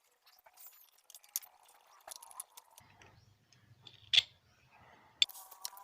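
Small clicks and rattles of motorcycle handlebar parts being handled and fitted, with a sharp click about four seconds in and another just after five seconds.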